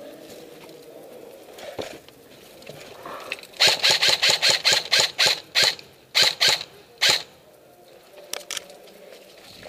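Airsoft gun firing a quick string of about fourteen sharp shots, roughly four or five a second with a brief pause in the middle.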